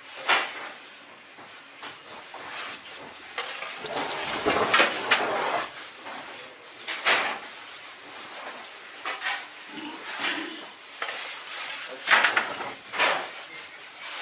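Irregular clattering and scraping of bakery work: separate knocks and scrapes every few seconds over a low hiss.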